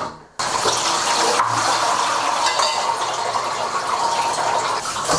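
Water pouring and splashing into a large stainless steel basin as wet grain is worked by hand through a wooden sieve. It starts about half a second in and runs steadily from there.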